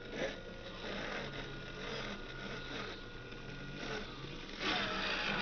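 Electric drive motor and gearbox of a radio-controlled dump truck whirring as it drives across grass. The sound grows louder about four and a half seconds in, as the truck moves onto loose soil.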